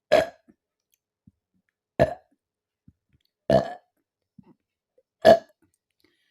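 A woman burping four times, short loud burps about one and a half to two seconds apart, brought up by drinking carbonated Thums Up cola.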